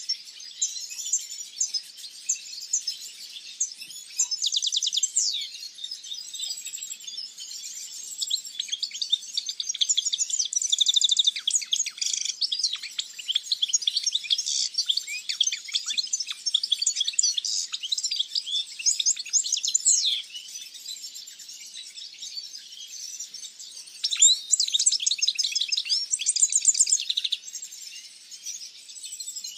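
Many small aviary songbirds, finches among them, singing and chirping at once in a dense overlapping chorus of high rapid trills and twitters. It swells louder in several stretches.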